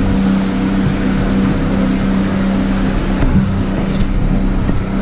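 A motor boat's engine drones steadily while under way, with water rushing and churning past the hull.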